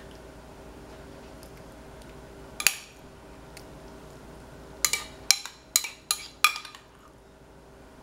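Spoon clinking against dishes as guacamole is spooned onto layered cups: one sharp knock about two and a half seconds in, then a quick run of about five clinks around five to six and a half seconds in.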